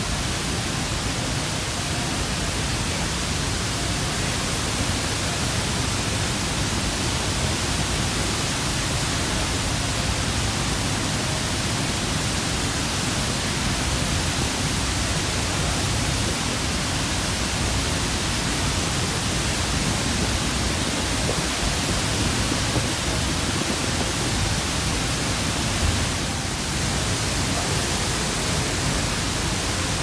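Niagara's Horseshoe Falls thundering down, heard from a portal directly behind the falling water: an even, unbroken rushing noise.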